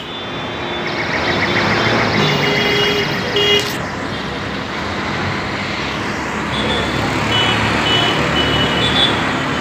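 Busy road traffic: a steady wash of vehicle engine and tyre noise, with short high-pitched beeps and toots coming and going, several in a row in the second half.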